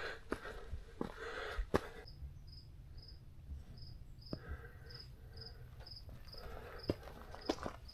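A hiker's footsteps and rustling on the trail, with sharp clicks of boots or poles. From about two seconds in, an insect, likely a cricket, chirps steadily in short high-pitched chirps, about two and a half a second.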